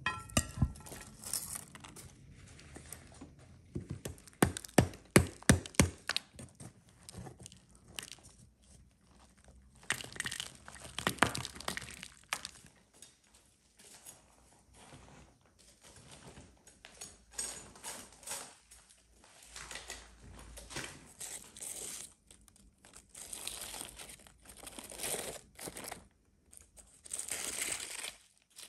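A knife hacking at a hard baked mud crust, with a quick run of sharp knocks a few seconds in and more cracking later. Dry mud crumbles, and aluminium foil and wrapping leaves crinkle as they are peeled back.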